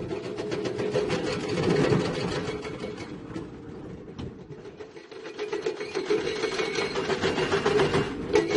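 Diesel engine of heavy construction equipment running with a rapid, steady mechanical clatter. It eases off around five seconds in and builds again afterward.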